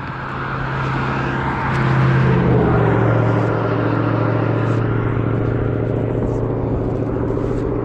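A motor vehicle's engine running, growing louder over the first two or three seconds and then holding at a steady hum.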